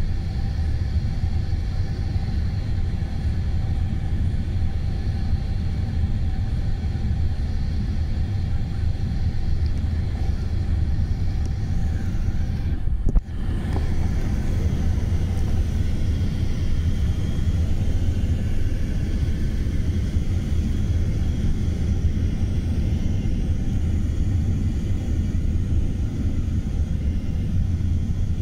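Airliner cabin noise on final approach: a steady low roar of the jet engines and rushing air, with a brief dropout about halfway through.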